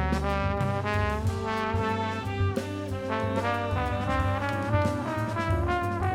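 Music: a horn melody of held notes over a backing band with a bass line and drums.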